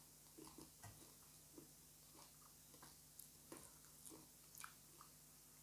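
Faint chewing and small wet mouth clicks from eating chicken by hand, scattered soft clicks every half second or so, over a low steady hum.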